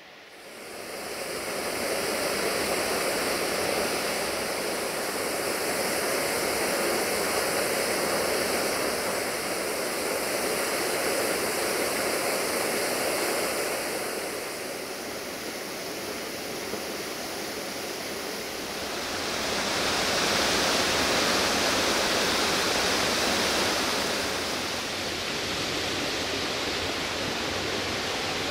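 Steady rushing water from a stream or waterfall. It swells up about a second in, changes tone around halfway through and turns brighter and hissier for a while near the end.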